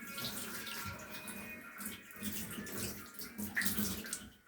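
Water running and splashing in a tub as a kitten is washed, in uneven bursts of splashing.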